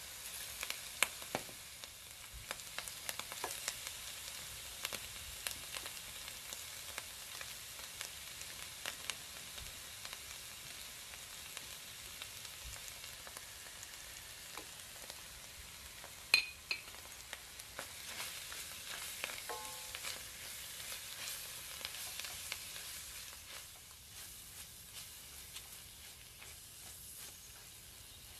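Grated-onion and tomato-paste sauce frying in oil in an enamelled cast-iron pot: a steady sizzle with scattered crackles and pops, easing off in the last few seconds. A single sharp knock about sixteen seconds in.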